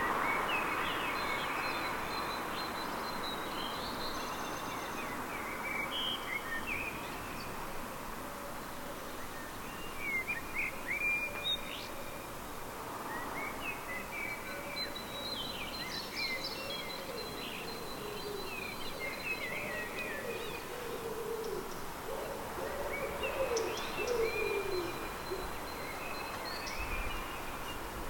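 Songbirds singing at night: short, high twittering and warbling phrases repeating over a steady background hiss.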